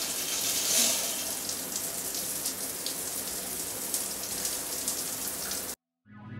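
Shower running: a steady hiss of spraying water that cuts off suddenly near the end.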